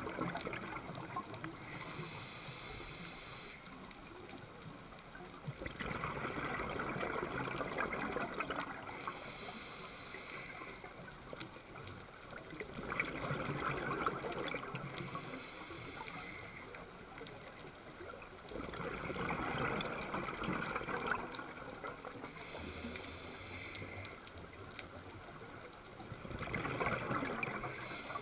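Scuba diver breathing through a regulator underwater: a burst of exhaled bubbles rushes and gurgles about every six to seven seconds, five times, with a fainter hiss of inhalation through the regulator between them.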